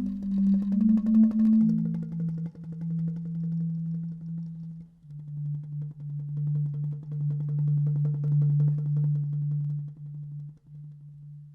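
Bamboo instrument ensemble music: a low sustained tone steps down in pitch twice over a faint rapid patter of bamboo percussion, then fades to a hush just before the end.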